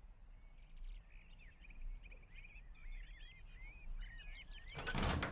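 Background birdsong: many small birds chirping in quick, twittering calls, with a short noisy burst near the end.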